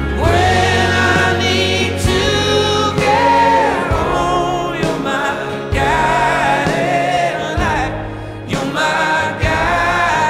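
Background music: a song with long, held sung notes, without clear words, over steady bass notes.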